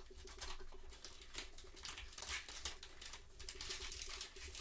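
Trading-card pack wrapper crinkling and tearing as it is pulled off a stack of cards, in irregular crackles.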